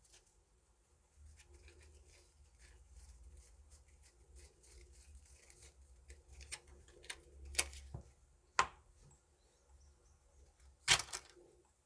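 Hwatu cards, the small stiff Korean flower cards, being handled and laid down with light clicks and rustles. Three sharper card slaps stand out in the second half, the loudest near the end.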